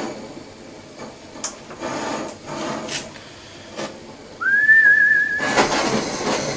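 Handheld cartridge gas torch being lit: a few clicks, a brief high whistle, then the torch catches about five and a half seconds in with a loud, steady rushing hiss of gas and flame.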